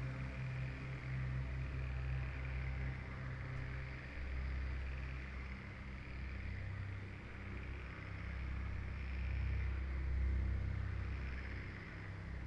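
Ambient background music of low held tones that shift every few seconds, layered with a high, steady insect chorus that slowly swells and fades.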